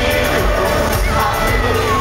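Live synth-pop band playing loudly over a PA with a steady beat, and the crowd cheering and shouting along.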